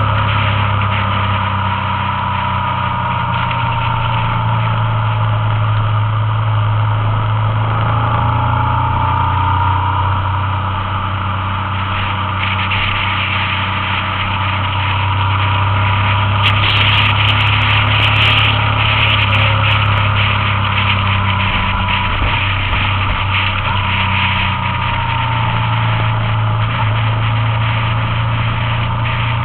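Motorcycle engine running at a steady cruise, heard from a camera mounted on the bike, with its note drifting gently up and down. Wind and road noise run under it and grow heavier for a stretch in the middle.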